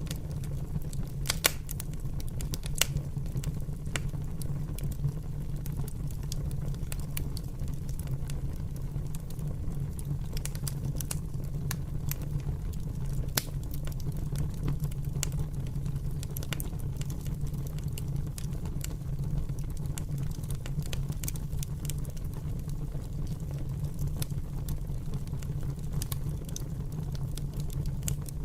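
Fire crackling, with irregular sharp pops over a steady low rumble; two louder pops come within the first three seconds.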